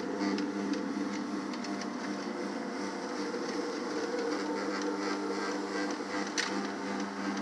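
Single-disc rotary floor machine running steadily, its motor hum with a bonnet pad spinning on carpet in low-moisture bonnet buffing. A brief sharp click about six and a half seconds in.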